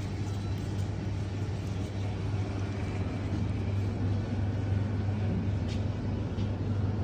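A steady low mechanical hum with rumble underneath.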